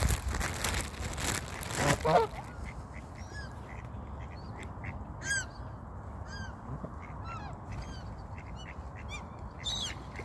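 Canada geese honking, with a loud honk about two seconds in, amid a steady scatter of short, high squawking calls from gulls flying overhead. Wind rumbles on the microphone in the first two seconds.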